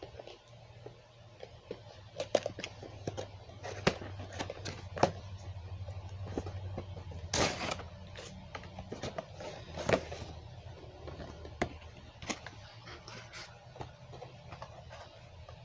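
Cardboard toy packaging being opened and handled: scattered clicks, taps and rustles, with one louder crackle about seven seconds in, over a steady low hum.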